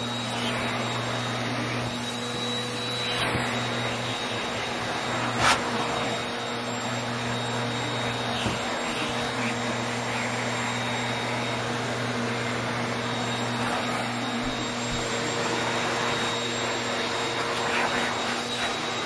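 Handheld electric pet grooming tool running steadily as it is worked through an Akita's thick fur, a motor hum with a thin high whine over it. A single sharp click about five and a half seconds in.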